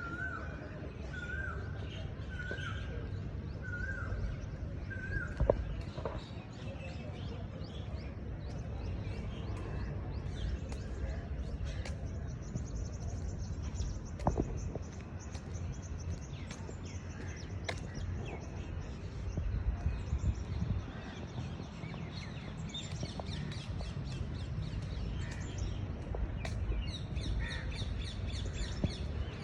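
Birds calling in the morning. A bird repeats a short pitched call about once a second for the first five seconds, and high chirping trills come later, over a low steady rumble.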